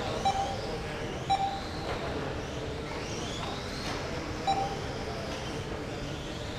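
Electric GT12 radio-controlled cars running on the track, their motors making high whines that rise and fall in pitch as they speed up and slow down. Three short electronic beeps, near the start, about a second later and past the middle, from the lap timing system registering cars crossing the line.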